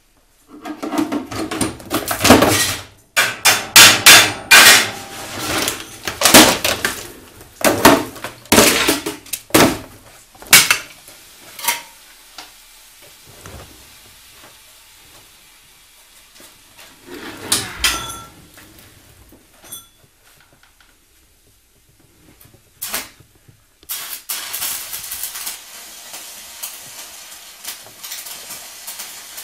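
A run of heavy knocks, bangs and metallic clatter, many in quick succession and then a few isolated ones, as a Lorch Handy welding inverter is put through a rough-handling strength test; a steady hiss takes over for the last few seconds.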